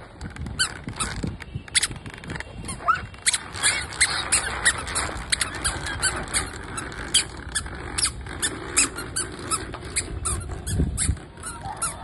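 Plastic baby push walker squeaking and clicking as it is rolled over a tiled floor, in an uneven run of sharp squeaks a few times a second.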